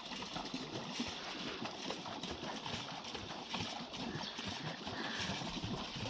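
Wood fire crackling: irregular small snaps and clicks over a steady hiss.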